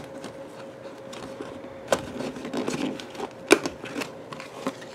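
Hands pressing and tucking the tabs of a craft-kit planetarium dome, the sheet pieces rustling and crinkling, with two sharp clicks about two and three and a half seconds in, the second the louder. A faint steady hum runs underneath.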